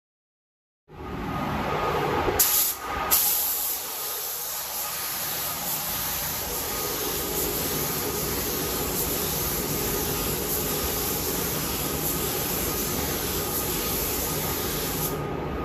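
Gravity-feed paint spray gun hissing steadily as it sprays a coat of paint, with a sharp high hiss of air over a lower rushing noise. It starts about a second in, with two brief louder bursts about two and three seconds in, and the high hiss cuts off just before the end.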